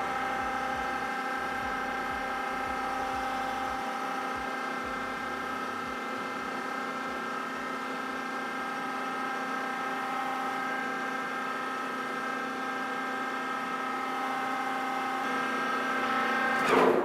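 Metal lathe friction welding two Inconel bars, one spinning hard against the other: a steady whine with many tones from the lathe and the rubbing metal. It rattles badly at first, then runs smooth as the joint heats, with a brief louder surge near the end before it stops abruptly.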